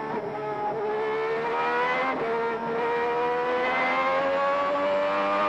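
Onboard sound of a 1991 Ferrari Formula 1 car's 3.5-litre V12 engine at racing speed. The revs dip slightly early on, break briefly about two seconds in, then climb steadily as the car accelerates.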